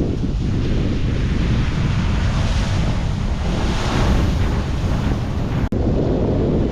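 Big ocean waves crashing and washing over a rocky shoreline: a constant low roar with a swell of hissing spray that peaks a few seconds in, under heavy wind buffeting on the microphone. The sound drops out for an instant near the end.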